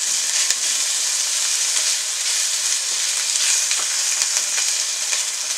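Chopped onions, ginger and green chilli sizzling steadily in hot oil with cumin seeds in a nonstick pan, being sautéed until translucent, while a silicone spatula stirs them with a few light scrapes and taps.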